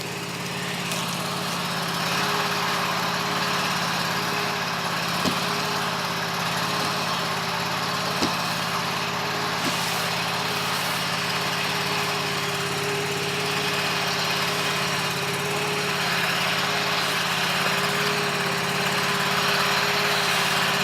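Carbureted engine idling steadily as it warms up after a cold start, with a few light clicks about a third and halfway in.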